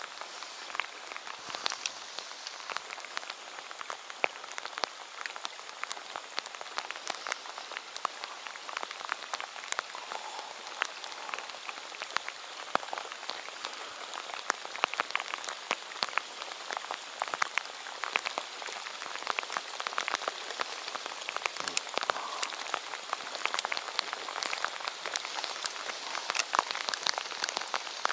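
Heavy rain falling on a lake's surface: a steady hiss with many sharp taps of drops landing close by.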